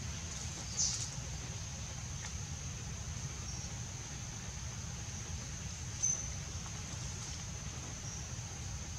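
Forest ambience: a steady, high-pitched insect drone with a few short, high bird chirps, the loudest about a second in and another about six seconds in.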